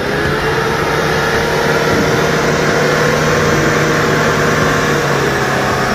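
SUV engine revving hard and held at steady high revs while the vehicle strains in deep mud. The revs climb a little in the first second, then hold.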